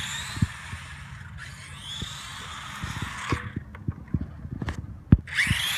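Dromida brushed electric RC rally car driving in bursts on asphalt: a hiss of motor, gears and tyres with a whine that rises in pitch each time it accelerates. The sound drops away about three and a half seconds in, a sharp knock comes about five seconds in, and then the car takes off again with another rising whine.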